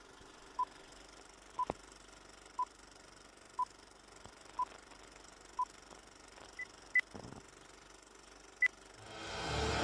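Film leader countdown beeps: six short beeps at the same pitch, one a second, followed by a few higher-pitched beeps and a sharp click, over faint hiss. About nine seconds in, a louder rushing noise fades in.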